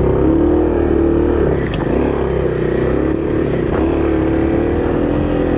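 Kawasaki KLX300's single-cylinder four-stroke engine running at fairly steady revs while the bike is ridden over rocky trail, with wind rumbling on the action camera's external microphone.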